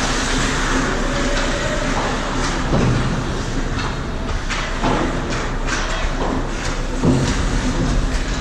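Ice hockey play: skate blades scraping the ice, with several sharp clacks of sticks and puck, over a steady low rumble.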